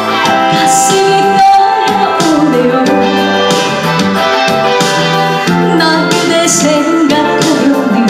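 A trot song played live: a woman sings into a microphone over a keyboard-led backing track, her voice dropping out for a stretch in the middle.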